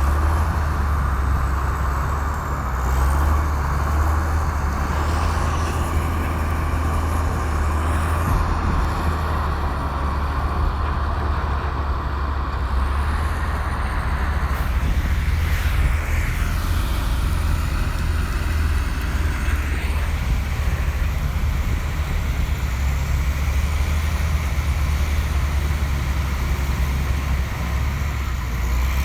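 Komatsu bulldozer's diesel engine running steadily as a continuous low drone while working. A rougher, hissing layer on top of the drone drops away about halfway through.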